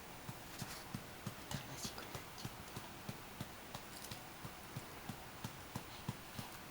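Soft, evenly spaced thumps, about three a second, keeping a steady rhythm.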